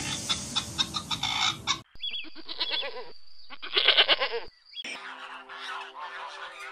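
A quick run of short, sharp calls, then goats bleating twice with a wavering tremble, the second bleat the loudest, then domestic geese honking and cackling in repeated calls.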